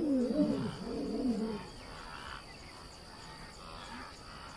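A lion's roar trailing off into two deep, falling grunts in the first second and a half. Then only a faint night background of insects.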